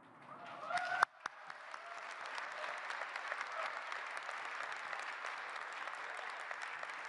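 Audience applause that starts up after a sharp click about a second in, swells and then holds steady.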